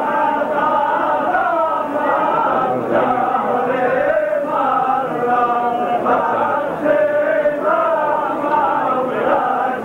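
A group of men chanting together, their voices sliding up and down in pitch without a break.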